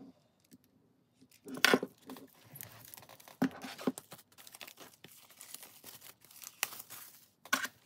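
Clear plastic shrink wrap being torn and peeled off an album, crinkling and crackling, with a sharp tear about a second and a half in and another near the end.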